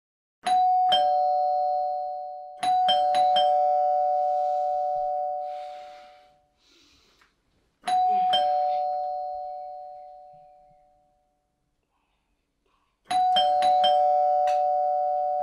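Two-tone ding-dong doorbell chime rung four times, each ring a higher note then a lower one that rings on and fades over a few seconds. The later rings come after longer gaps, as if someone keeps ringing and waiting.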